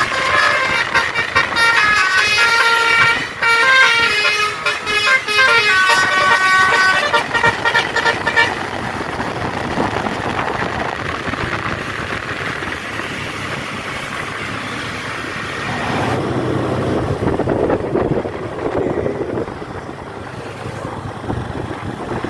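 Bus telolet musical air horn playing a fast tune of stepped, chord-like notes for about eight seconds, then stopping. Bus engine and road noise follow, with a heavier rumble of a passing vehicle swelling later on.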